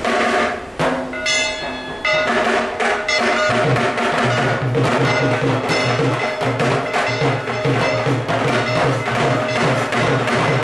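Temple arati percussion: a fast, continuous clatter of struck bells and gongs with drums, and a steady pulsing drum beat joining about three and a half seconds in.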